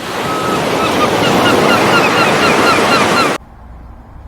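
Sea waves washing with a loud hiss, with a bird calling in quick repeated chirps over it. The sound cuts off abruptly a little over three seconds in, leaving only faint wind rumble.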